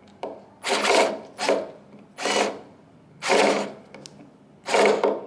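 Bosch GO 2 cordless screwdriver, set to maximum torque and reverse, runs in about six short bursts against a painted-over door hinge screw. It fails to back the screw out.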